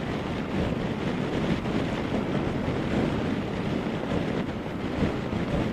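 Wind rushing over a full-face HJC IS-16 motorcycle helmet and its chin-mounted GoPro while riding: a steady, even rush of wind noise on the camera microphone.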